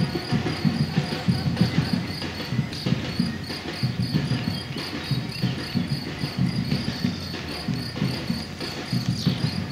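Many running shoes striking an asphalt path as a large group of runners passes, a dense, irregular stream of footfalls. Above it runs a faint, even high chirping at about four pulses a second.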